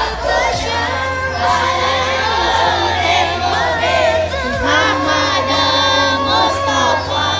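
Many children's voices singing together in unison as they march, a steady group chant with no instruments standing out.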